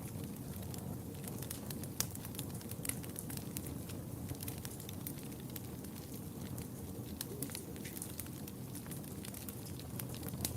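Wood fire burning in a fireplace: a steady low rumble of flames with irregular sharp crackles and pops, one louder pop about two seconds in.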